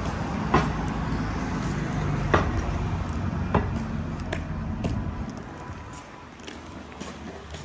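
Street traffic: a low vehicle engine rumble that fades away after about five seconds, with a few sharp clicks scattered through it.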